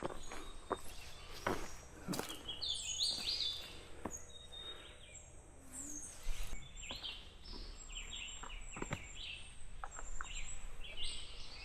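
Wild birds chirping, many short quick notes one after another, over a faint steady high tone, with a few sharp clicks scattered through.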